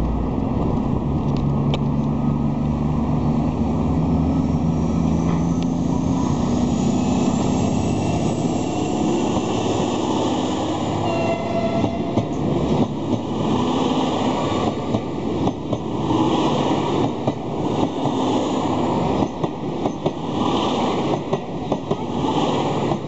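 V/Line VLocity diesel railcar set approaching and passing close by at speed. Its diesel engines drone for the first several seconds, then the wheels clack rapidly over the rail joints as the cars go past.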